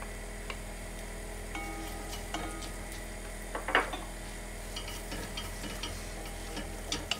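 Wooden spoon stirring chopped onion and garlic in olive oil in an enamelled cast-iron casserole, with scattered taps and scrapes of the spoon on the pot and one sharper knock a little past halfway. The onions fry with a gentle sizzle over a low gas flame that is not yet hot enough to brown them.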